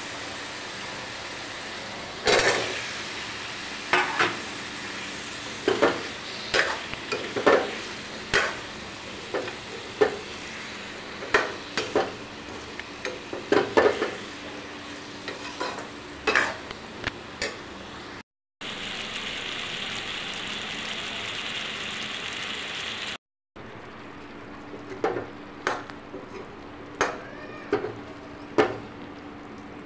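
Spiced oil sizzling in a metal kadhai while a steel spatula stirs and scrapes the pan, giving irregular scrapes and clinks over a steady frying hiss. Past the middle, two brief gaps frame a few seconds of louder, steadier sizzling, and then the stirring of the diced pumpkin in the hot oil continues.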